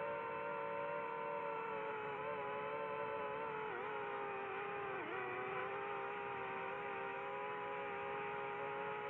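Quadcopter drone's motors and propellers whining steadily, heard from the drone itself. The pitch dips briefly twice near the middle as the throttle eases, over a faint rush of water.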